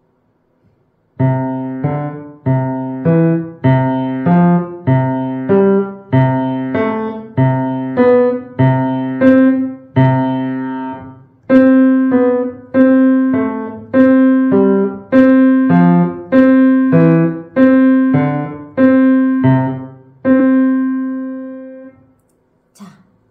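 Piano played with the left hand in a slow, even wrist-rotation exercise: pairs of notes rock back and forth while the interval between them widens step by step from a second to a third, fourth and fifth. The passage ends on a held note that dies away.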